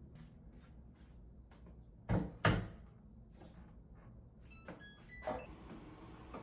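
Household knocks and clicks, like a cupboard or door being handled: a few light clicks, then two loud knocks about two seconds in, followed by a few short high ringing notes and another knock.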